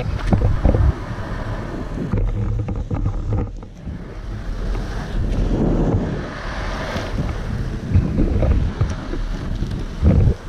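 Loaded Icarus longboard rolling and carving over asphalt: a steady low rumble from the wheels on the rough surface, mixed with wind buffeting the microphone, and a few sharp knocks.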